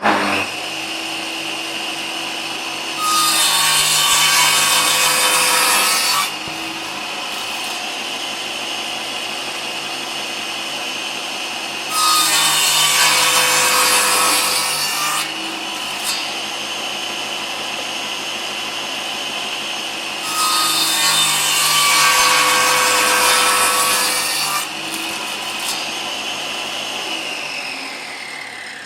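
A woodworking power tool runs steadily and cuts into wood three times, each cut a few seconds of louder rasping noise over the motor's whine. Near the end the motor winds down with a falling whine as it is switched off.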